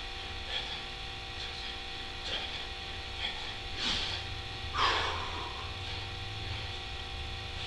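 A man's short, forceful breaths, one with roughly each push-up, about one a second and loudest about four to five seconds in, over a steady low electrical hum.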